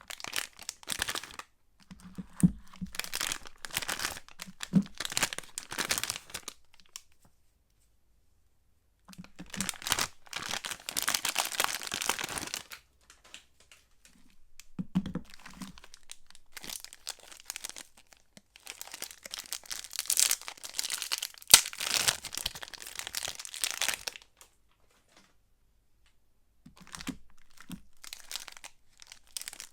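Soap wrappers being torn open and crinkled by hand, in bursts of a few seconds with short silent gaps between them and a few soft knocks.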